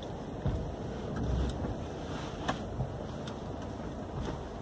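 Toyota Fortuner's 2.8-litre four-cylinder turbodiesel running at low, near-idle revs as the SUV crawls over off-road terrain, heard from inside the cabin as a steady low rumble. A few faint knocks come through it.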